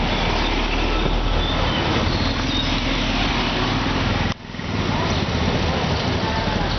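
Busy city street traffic: a city bus's engine rumbles as it passes close by, then steady road noise of passing vehicles. The sound breaks off sharply for a moment about four seconds in.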